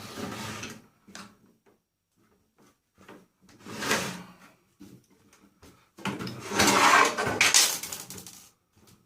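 Metal parts of a microwave oven scraping, rattling and clicking as it is pulled apart by hand. There is a short scrape at the start, another about four seconds in, and a longer, louder stretch of rattling near the end, with scattered clicks between.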